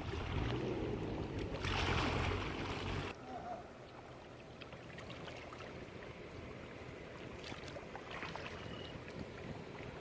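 Wind buffeting the microphone on a kayak for about the first three seconds, with a short rushing gust near two seconds in. Then comes a faint wash of water around the kayak with a few small ticks and knocks.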